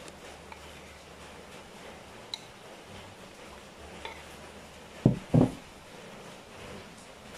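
A metal spoon scoops rice flour from one bowl into a plastic bowl, with a few light clinks. About five seconds in come two dull thumps close together as the white bowl is set down on the wooden table.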